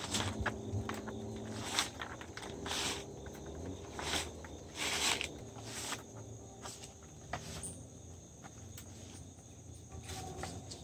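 Footsteps crunching through dry leaf litter, with the rustle and scrape of a coil of old barbed wire being unrolled along a fence; a few louder crunches, the loudest about three and five seconds in.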